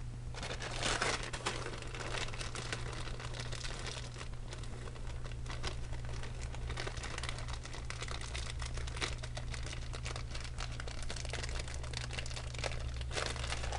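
Scrapbooking embellishments and their packaging crinkling and rustling as they are handled, with louder crinkles about a second in and near the end. A steady low hum runs underneath.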